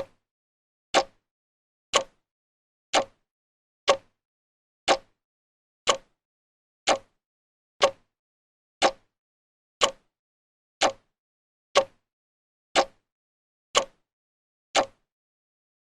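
Clock ticking at an even one tick a second, each tick a sharp, identical click.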